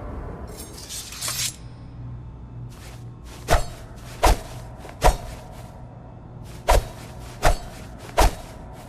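Wakizashi sword: a short metallic scrape that grows louder, then six sharp metallic strikes in two sets of three, each ringing briefly.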